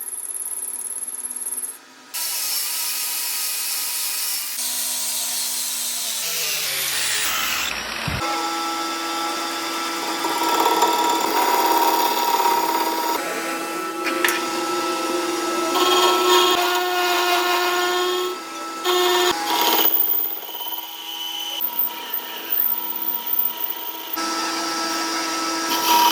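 Metalworking power tools running in a string of short cuts, with steady machine whines. Around six to eight seconds in, one motor spins down with a falling tone.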